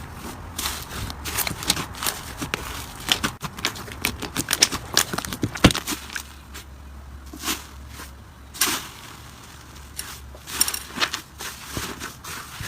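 Slime being squeezed and handled, making irregular clicking and crackling pops, a few of them sharp and loud.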